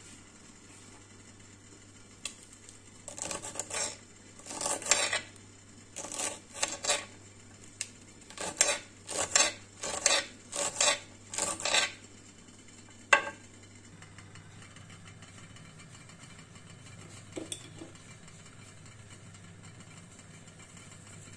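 Kitchen knife chopping crisp broccoli leaf stalks on a cutting board: about a dozen cuts in quick succession starting a few seconds in, followed by one sharp knock of the blade.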